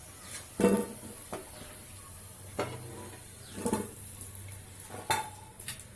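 A metal utensil knocking and scraping against a pan of hot oil, about six irregular clinks, one ringing briefly about five seconds in, while urad dal fritters sizzle faintly in the oil.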